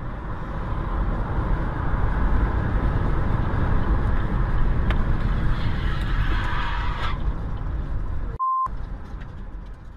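Steady road and engine noise of a car driving on a highway, heard from inside the car by a dashcam. Near the end the noise cuts out briefly for a short electronic beep.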